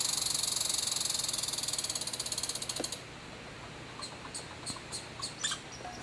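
American red squirrel giving its rattle call, the territorial chatter: a fast run of dry, ratchet-like clicks that fades out about three seconds in. A few scattered clicks follow.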